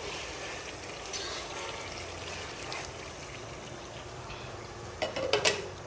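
Steady hiss of food sizzling as it fries in a pot. About five seconds in, a quick run of sharp clinks of utensil against cookware.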